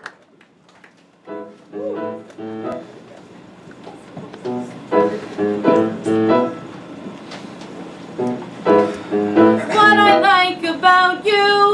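Piano accompaniment starts about a second in, playing short groups of chords. Near the end a woman's voice begins singing over the piano.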